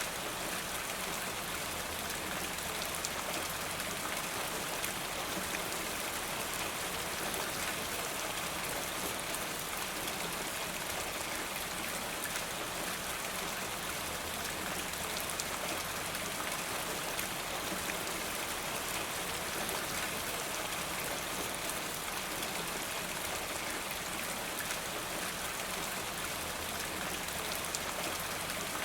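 Steady rain falling, with drops pattering and runoff from a rain gutter, heard as an even hiss sprinkled with fine drop ticks.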